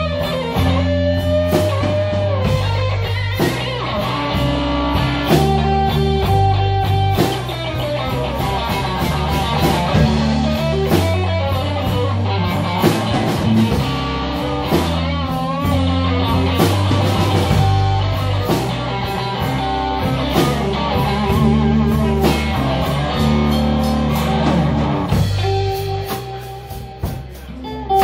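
Live blues band playing: an electric guitar lead with bent, wavering notes over electric bass and a Gretsch drum kit. The band drops quieter for a moment near the end.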